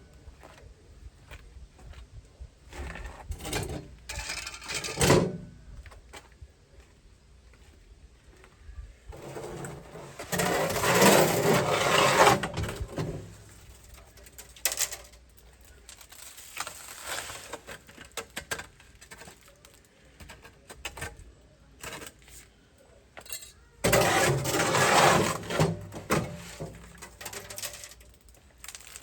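Hand work in wet concrete: scattered scrapes and knocks of a tool, with two longer stretches of scraping about ten seconds in and again near the end.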